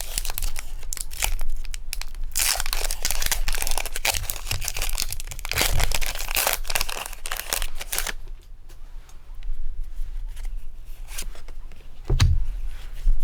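Foil Pokémon card booster pack wrapper crinkled and torn open, a dense run of crackling for about eight seconds, then quieter scattered rustles and a soft bump near the end.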